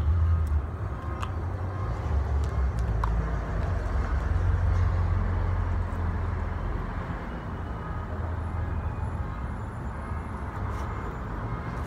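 Road traffic noise: a steady low rumble of passing and idling vehicles, with a few faint clicks.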